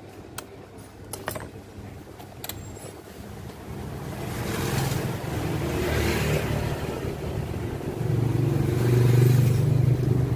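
A few light clicks of small plastic parts being handled, then a low motor-like rumble that builds from about four seconds in and is loudest near the end.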